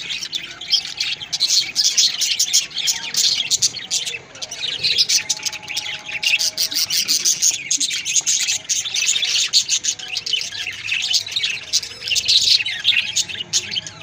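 A flock of budgerigars chattering: many quick, overlapping chirps.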